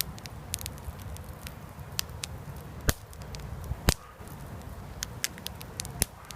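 Microwave popcorn kernels popping inside the bag on a campfire: irregular sharp pops, the two loudest about three and four seconds in, over a low steady rumble.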